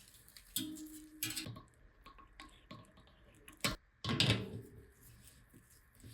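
Workbench handling noises: light clicks and rustles, a brief squeak-like tone early on, then a sharp click a little past the middle followed by a short scrape.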